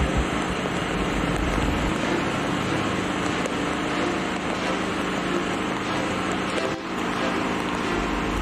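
Steady rushing roar of a swollen, muddy river in flood, with a brief drop in level about seven seconds in.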